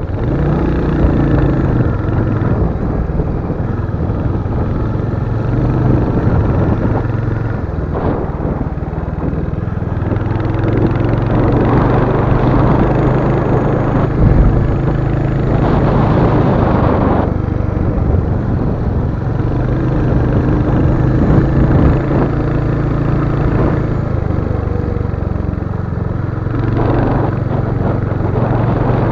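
Royal Enfield Hunter 350's single-cylinder engine running while the bike is ridden, a steady low thrum whose pitch shifts a few times with throttle, under a rush of wind and road noise that swells for several seconds about midway.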